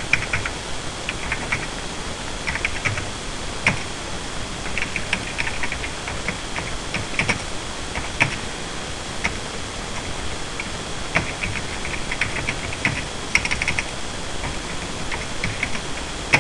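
Typing on a computer keyboard: short, irregular bursts of key clicks with brief pauses between them, over a steady background hiss.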